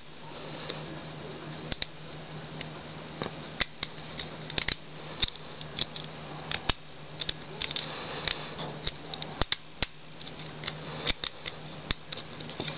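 A lock pick working the pins of a cheap padlock: irregular small metallic clicks and scrapes as the pins are set.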